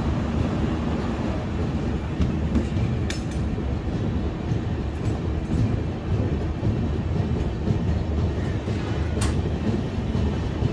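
East Coast Express passenger train rolling along a station platform, its wheels rumbling steadily on the track, with a sharp clack about three seconds in and another about nine seconds in.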